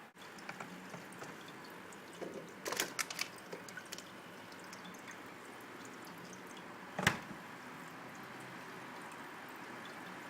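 Cat working at a refrigerator door: a scatter of small clicks and scrapes around three seconds in, then one sharp knock about seven seconds in.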